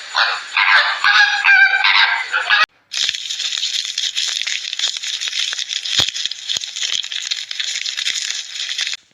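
Birds calling: about two and a half seconds of honking calls, then, after a sudden cut, a dense, steady flock chatter scattered with small clicks.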